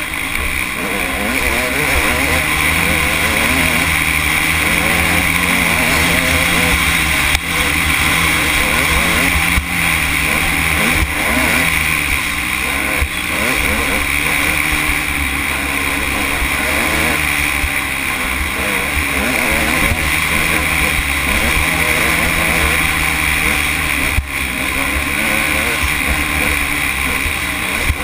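Off-road motorcycle engine running hard on the throttle, heard from on board, its pitch rising and falling as the rider works the throttle, with a few brief dips.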